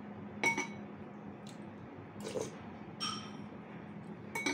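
Utensils clinking against a bowl and dishes during a meal: a few sharp ringing clinks, one about half a second in, one about three seconds in and one near the end, over a faint steady hum.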